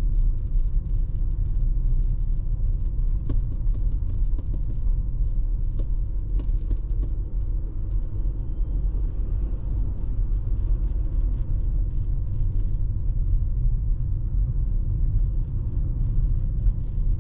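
Steady low road and tyre rumble heard inside the cabin of a Tesla electric car driving on a snowy road, with scattered faint ticks.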